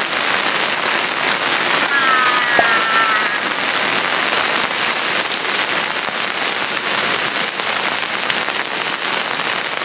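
Heavy rain pouring steadily and splashing on puddled ground.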